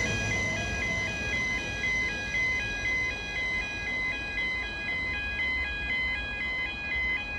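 Electronic two-tone warning alarm sounding continuously, flipping back and forth between two pitches a few times a second, over the low rumble of a train.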